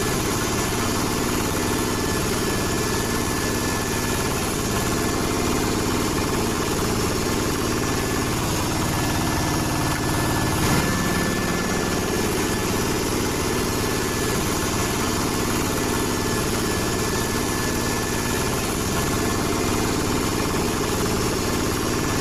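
Small electric motor of a homemade miniature concrete pump running steadily, pushing wet concrete through a hose.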